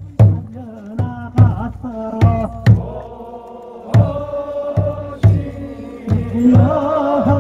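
Korean funeral bier song (sangyeo sori): a voice chanting long, wavering notes over drum beats struck about every half second, with a short break in the beats partway through.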